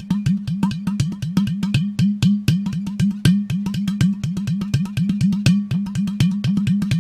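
Udu, a ceramic clay-pot drum, played by hand in a fast, even rhythm of about six or seven strikes a second over a low ringing tone from the pot.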